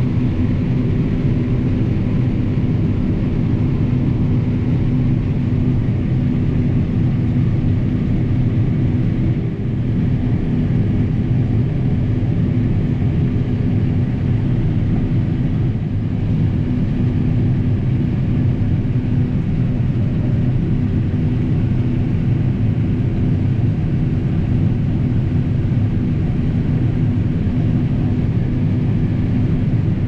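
John Deere S780 combine running steadily under load while harvesting corn, heard inside the cab: an even, loud low drone of engine and machinery.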